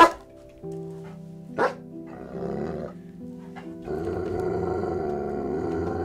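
A dog barking and then growling for about two seconds near the end, over background music with a steady tune. A loud, sharp sound comes right at the start, and a short bark about a second and a half in.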